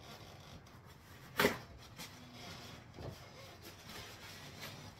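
Quiet kitchen handling noises with one sharp knock about a second and a half in, as of something set down or struck on the counter while almond bark is being readied for grating.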